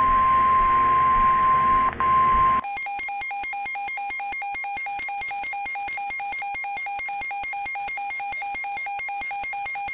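A steady, single-pitch weather-radio alert tone (the 1050 Hz NOAA Weather Radio warning tone) over radio hiss, cutting off about two and a half seconds in. It is replaced by a rapid, evenly pulsed electronic beeping pattern that continues steadily to the end.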